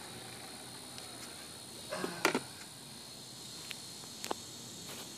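A brief clatter of plastic on concrete about two seconds in as the landed RC helicopter and its transmitter are handled, followed by a few light clicks. A faint steady high hum continues in the background.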